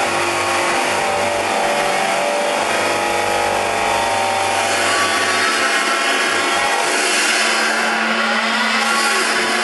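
Large abrasive grinding wheel on a Clansman Dynamics G30P grinding manipulator, running steadily and loudly with a motor whine. Near the end it grinds a metal casting, throwing sparks.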